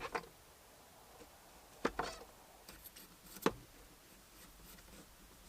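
A few sharp taps and knocks from kitchen utensils being handled while garlic is prepared: a quick pair at the start, then single knocks about two and three and a half seconds in.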